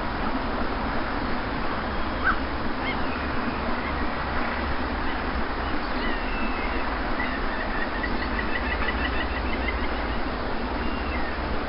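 Steady wash of sea surf on a beach, with birds calling over it: short rising whistles, and a fast trilled call about seven seconds in.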